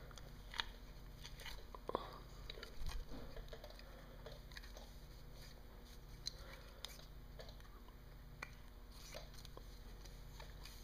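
Faint handling noises: scattered small clicks and rubbing as a greased rubber impeller is twisted into a Mercruiser seawater pump housing, its vanes folding against the housing wall. A few louder clicks come in the first three seconds, over a low steady hum.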